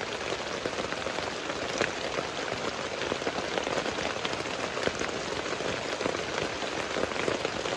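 Heavy rain pouring down in a steady, dense patter of drops.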